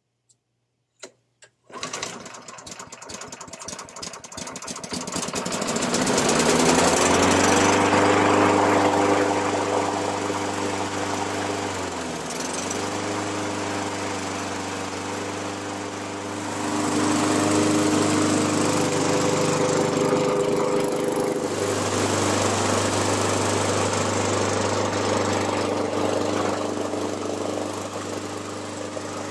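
Honda HRC216 commercial lawn mower's single-cylinder four-stroke engine starting on choke after a few faint clicks, catching about two seconds in and then running steadily. Its speed rises and falls, dipping briefly about twelve seconds in. This is the first start after a tune-up with fresh oil, a new spark plug and a new air filter.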